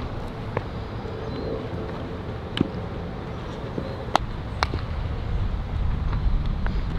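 Baseballs popping into leather gloves during an infield throwing drill: four sharp, short pops, two of them close together a little past the middle, over a steady low rumble that grows louder near the end.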